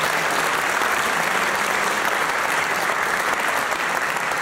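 A theatre audience applauding, a steady, even clapping.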